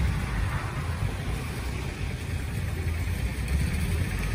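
A vehicle engine idling nearby, a steady low rumble.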